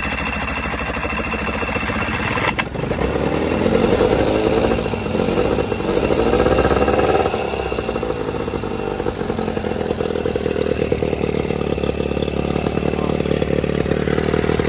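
1983 Johnson 15 hp two-cylinder two-stroke outboard running just after starting, on a water hose for cooling. Its revs rise and fall for a few seconds, then settle into a steady idle.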